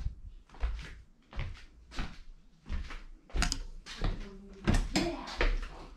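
Footsteps on a hard plank floor, about one and a half steps a second, as a person walks from one room to the next.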